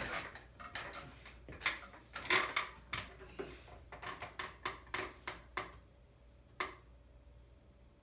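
Irregular clicks, knocks and clatter of a person climbing up and handling a ceiling fan, over a low steady hum. The knocking dies down about six seconds in, with one more click shortly after.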